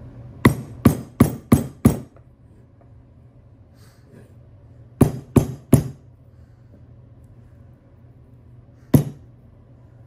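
Hammer blows driving a sleeve into a truck upper control arm's bushing: a quick run of five sharp strikes, then three more, then a single strike near the end.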